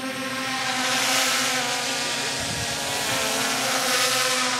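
Drone's propellers buzzing like a swarm of bees as it flies low overhead, the buzz swelling louder about a second in and again near the end.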